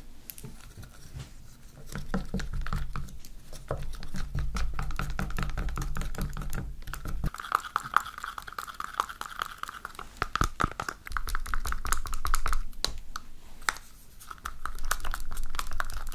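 Wooden stirring stick working black dye powder into clear glue in a plastic tub: a dense run of quick clicks and scrapes against the tub's sides and bottom.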